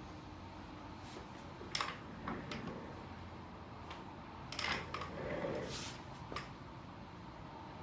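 A few short clicks and a brief rustle of movement on a chiropractic treatment table as the patient is positioned and adjusted.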